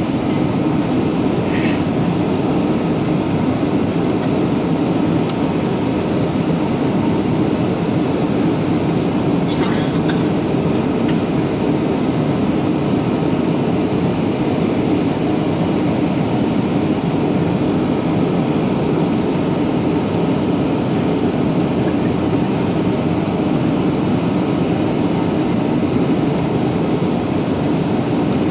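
Steady cabin noise inside a Boeing 737-800 airliner on descent: the even hum of its CFM56-7B turbofan engines and the rush of air past the fuselage.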